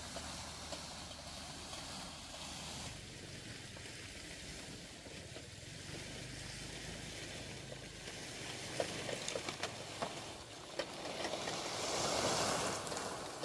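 A few footsteps on a dirt path, then a swelling rustle of palm fronds dragged along the ground, loudest as they pass close near the end.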